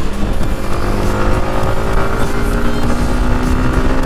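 Yamaha MT-15's single-cylinder engine pulling in gear while riding, its pitch rising slowly over a few seconds, with wind rushing over the helmet-mounted camera.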